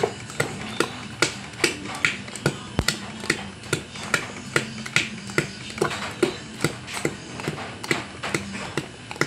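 A bare hand mixing thick batter in a plastic basin by hand, with a sharp wet slap on each stroke, about two and a half slaps a second in a steady rhythm.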